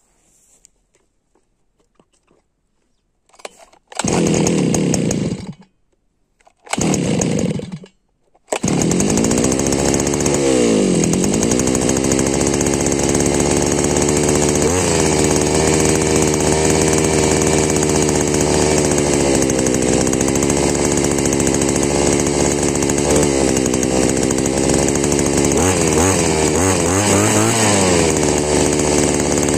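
Chinese Demon two-stroke brush cutter engine cold-starting: it fires briefly and dies twice, then catches about eight seconds in and keeps running, its speed dropping and rising a few times.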